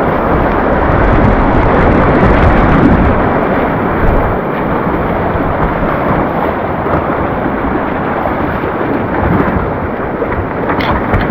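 River rapids rushing: a steady, loud roar of whitewater around the kayak.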